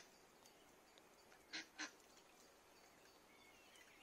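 Near silence broken by two short bird calls in quick succession about a second and a half in.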